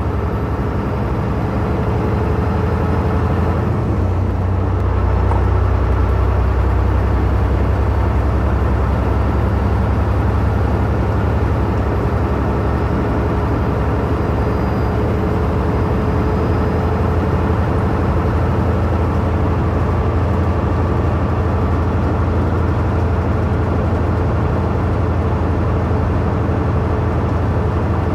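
Heavy truck cruising at highway speed, heard from inside the cab: a steady engine drone with tyre and road noise. The low hum shifts slightly about four seconds in, then holds steady.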